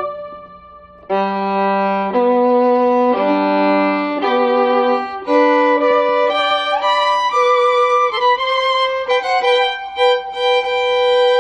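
Background music, a melody of held notes. It dips away briefly at the start and comes back about a second in.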